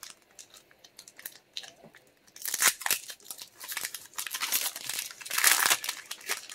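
Pokémon booster pack wrapper crinkling and being torn open, starting about two and a half seconds in after a few light handling clicks. The loudest crackle comes about five and a half seconds in.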